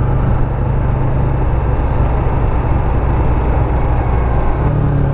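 Yamaha MT-03's 321 cc parallel-twin engine running steadily while the motorcycle is ridden along the road, with wind and road noise.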